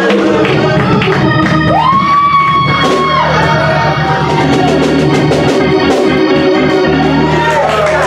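Gospel organ music over a drum kit, loud and steady, with a long high note held for over a second about two seconds in.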